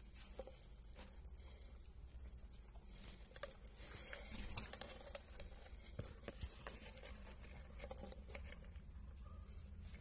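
Faint scratching and rustling in the wood-shaving bedding of a lovebird nest box, with scattered light clicks, over a steady thin high-pitched whine.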